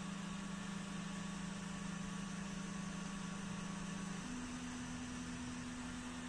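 NEJE Master 2 Plus laser engraver's stepper motors humming steadily as they drive the laser head during engraving; the hum's pitch shifts higher about four seconds in.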